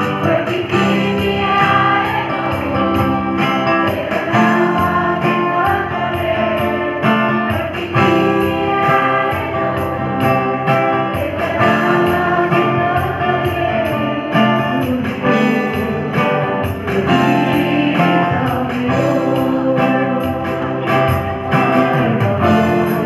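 Live amateur band: a singer at a microphone over two strummed acoustic guitars, amplified through a PA speaker.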